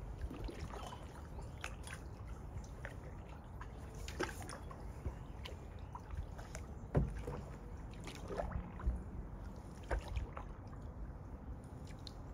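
Kayak paddle dipping into calm river water, with irregular splashes and drips from the blades; the loudest splash comes about seven seconds in.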